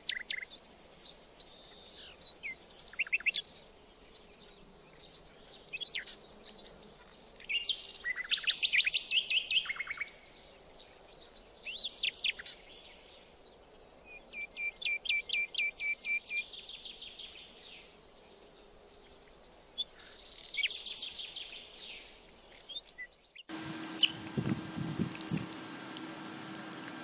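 Young otters' high-pitched chirping squeaks, coming in quick runs and trills with short pauses between them. About 23.5 s in, a few loud, sharp squeaks from another otter follow over a steady hum.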